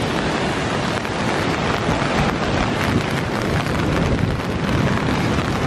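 Strong tropical-storm wind buffeting the microphone, with rain and the rush of breaking surf beneath it.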